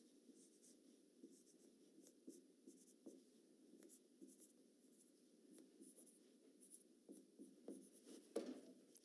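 Felt-tip marker scratching and squeaking faintly on a whiteboard in many short, irregular strokes as words are handwritten, with one slightly louder stroke near the end.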